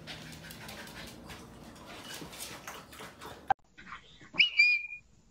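A small dog whimpering softly, with a run of quick breathy sounds. After a sharp click about three and a half seconds in, a short high-pitched tone sounds near the end.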